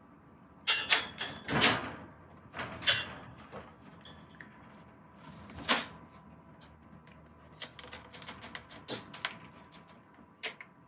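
A cat batting at a feather teaser toy on the plastic floor of a wire crate: irregular rustles, scrapes and knocks, loudest in a cluster about a second in, then lighter clicks near the end.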